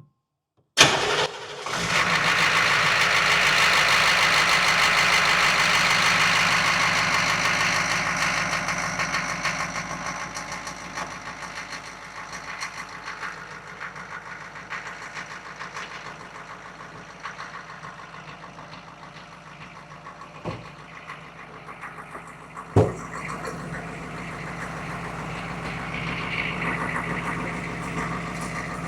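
Cold start of an HMMWV Humvee's diesel V8 after sitting: it fires within about a second, runs loud and fast at first, then settles to a steadier, quieter idle after about eight seconds. Two sharp knocks come about twenty seconds in, the second louder.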